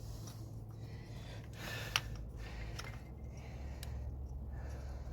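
Faint handling noises of a wiring connector and wire being worked by hand in an engine bay: a soft rustle with a sharp click about two seconds in and another light click later, over a steady low hum.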